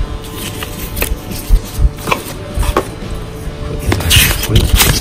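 Paper cards and leaflets being handled and shuffled by hand: rustling, with several sharp clicks and taps about one to three seconds in and denser rustling near the end. Background music runs underneath.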